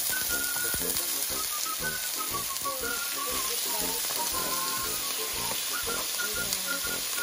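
Raw pork belly cubes sizzling in hot oil in a nonstick frying pan, with a steady frying hiss. Background music plays over it.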